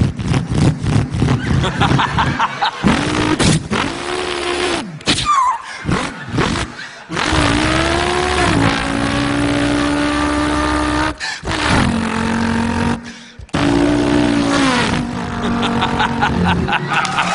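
A man imitating a racing car engine with his voice: revs that rise and drop like gear changes, a long steady held note in the middle, and a few short breaks between runs.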